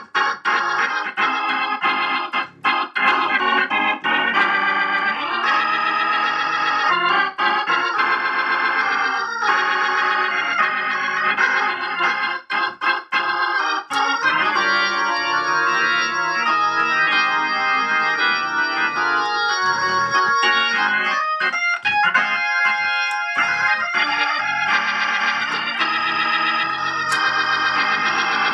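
1963 Hammond B3 organ played through a Leslie speaker cabinet powered by a freshly rebuilt Leslie 122 amplifier, with a ferrofluid upper driver and a reconed P15LL woofer: sustained chords and runs, with a few brief stops between phrases.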